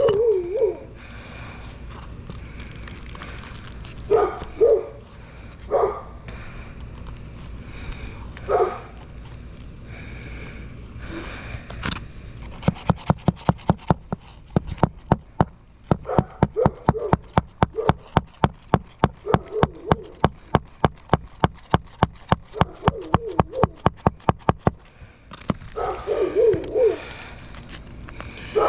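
Hammer driving roofing nails into a replacement shingle: a long run of sharp strikes, about three or four a second, starting about halfway through and stopping near the end. A dog barks and whines on and off throughout.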